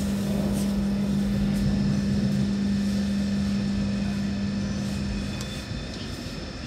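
BN coast tram humming steadily at one low pitch, the hum dropping away about six seconds in, over the rumble of the ride.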